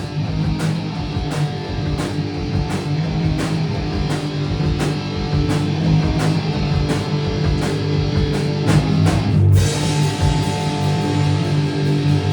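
Live hardcore punk band playing an instrumental outro: distorted electric guitar, bass and drums with a steady beat. About nine and a half seconds in the drumming stops and the guitar is left ringing on a held chord.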